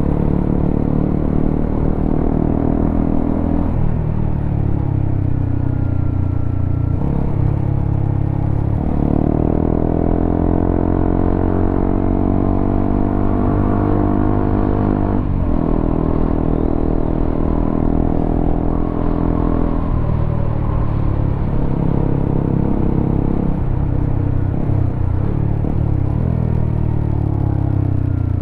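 Honda CBR motorcycle engine running through a WRX K3 oval aftermarket exhaust under load. Its note climbs steadily for several seconds at a time and drops sharply about fifteen seconds in, as at a gear change, then climbs again.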